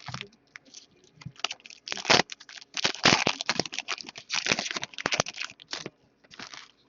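Hockey trading cards being flipped and slid through by hand: a quick, irregular run of card rustles and flicks, busiest in the middle.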